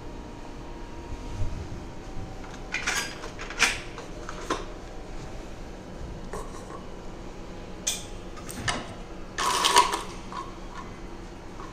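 A string of short clicks and clatters from handling at a drinking-water dispenser, the loudest a longer rattle near the end. Under them runs the steady low hum of the ferry.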